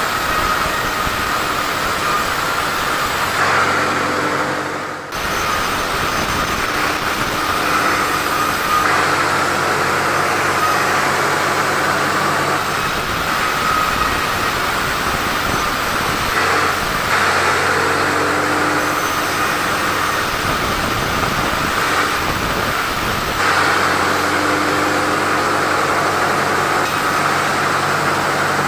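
Sawmill saw running steadily and cutting teak timber, with a steady high whine over the machine noise and a brief dip in level about five seconds in.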